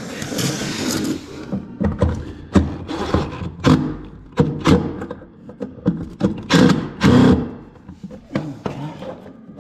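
Cordless impact driver driving screws into a wooden 2x4 in short bursts, one near the start and a longer one about two-thirds through, with irregular knocks and thunks in between.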